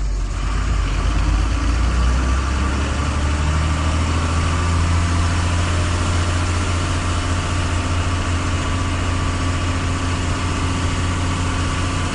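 Truck engine running steadily with a strong low hum, heard from inside the cab as it drives slowly.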